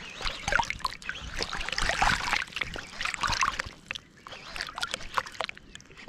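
River water sloshing and splashing right at the microphone in irregular bursts, with small drips and clicks.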